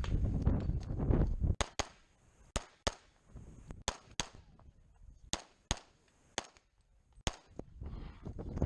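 A string of Glock pistol shots fired in a timed stage, mostly as quick pairs about a second apart. A low rumble fills the first second before the shots begin.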